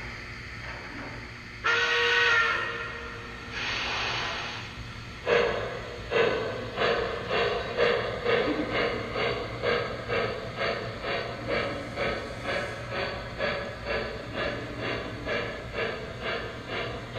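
Model New York Central GP7 diesel's onboard sound system giving two horn blasts, the first loud and the second softer, then ringing the locomotive bell steadily at about one and a half strokes a second over the rumble of the train running.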